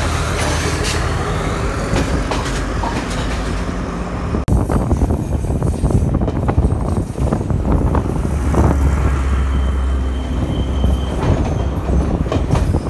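Diesel passenger train running along a station platform, a steady low engine hum over the noise of wheels on rail. About four and a half seconds in the sound cuts sharply to a diesel train approaching, its engine running under a rattle of knocks from wheels and couplings.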